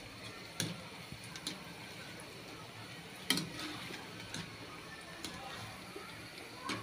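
Gulab jamun dough balls frying in hot oil: a faint, steady sizzle with a handful of sharp clicks scattered through it.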